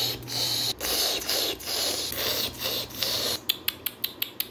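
Eating noises at a meal of pork cracklings: choppy scraping and crunching, then a run of quick clicks about five a second near the end.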